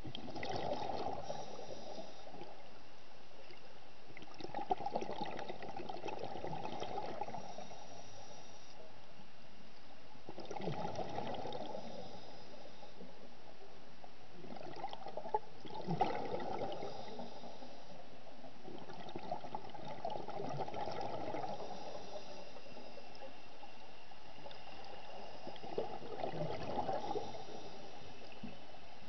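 Scuba diver's exhaled breath bubbling out of the regulator underwater, in bursts of two to three seconds about every four to five seconds, six times in all.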